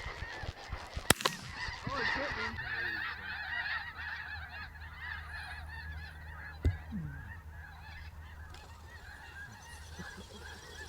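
A large flock of geese calling at once, a dense chorus of overlapping honks. Two shotgun shots ring out, one about a second in and another near seven seconds.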